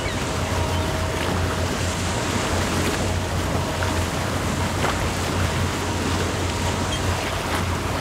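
Passenger boat's engine running with a steady low hum, with water rushing along the hull and wind buffeting the microphone.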